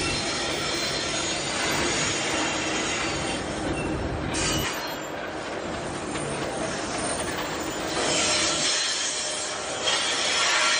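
Loaded iron-ore gondola wagons rolling slowly past on steel wheels, a steady rumble and grinding of wheels on rail with high-pitched wheel squeal, strongest near the end.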